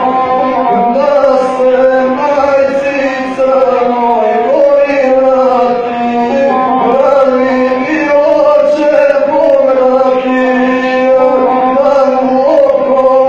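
Gusle, the single-string bowed folk fiddle, played with a man's chanted epic singing in a wavering, ornamented melody that runs on without a break.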